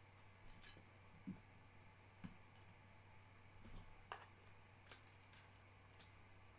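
Very faint, scattered clicks and a couple of soft taps from trading cards being handled and slid through by hand, over a low steady hum.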